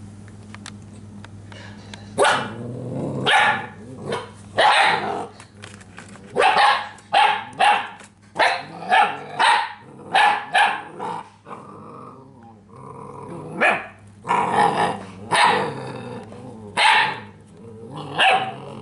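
Belgian Malinois puppy barking again and again, starting about two seconds in, with a fast run of short barks in the middle, a brief pause, then more barks.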